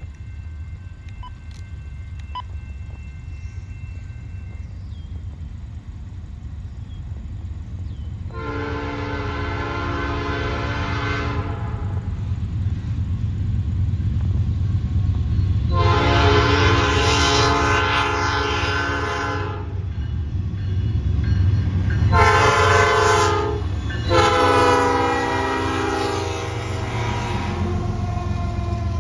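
Train horn sounding the grade-crossing signal: two long blasts, one short and one long. Under it the locomotive's low rumble grows louder as the train approaches.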